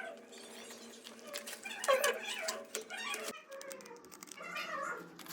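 A pet animal's short cries, several in a row, each bending in pitch.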